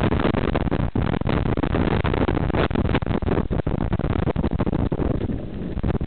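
Loud wind noise and rumble on the microphone of a camera mounted on a moving bicycle. It eases slightly about five seconds in.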